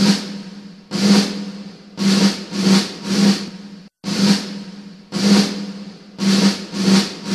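Title music built on drums: two single strikes, then three quicker ones, each ringing out with a low tone, the pattern repeating after a brief break about every four seconds.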